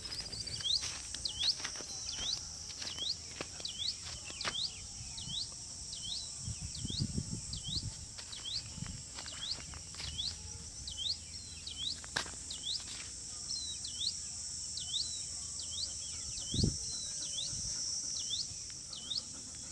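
A steady high-pitched insect drone with a bird repeating one short swooping note at a bit under a second's spacing, over and over, with scattered faint clicks and rustles.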